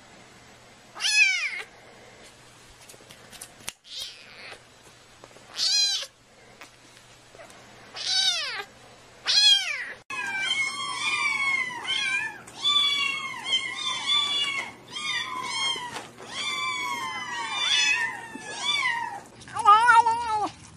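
Kittens meowing. At first a single kitten gives a thin, high meow every second or two, four in all. From about halfway a group of kittens mew over one another in quick succession, and near the end comes one call with a wavering pitch.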